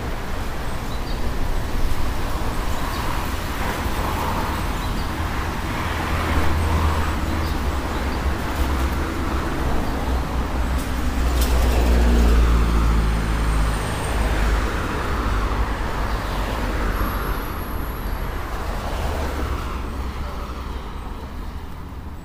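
Road traffic: cars driving past on a city street one after another, each swelling and fading, the loudest about twelve seconds in, quieter near the end.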